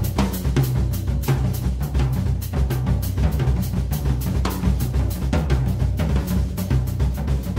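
A Ludwig drum kit played solo with sticks: a dense, continuous run of snare and tom strokes over a booming bass drum.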